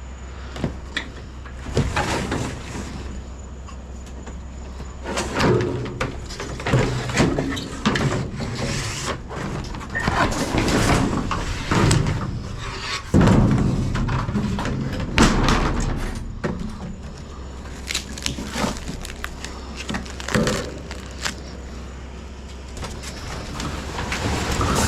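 Junk being handled and shifted: irregular knocks, clatters and scrapes over a steady low hum.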